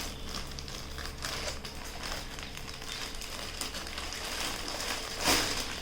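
Courier parcel packaging rustling and crinkling as it is handled and opened, with a louder rustle near the end.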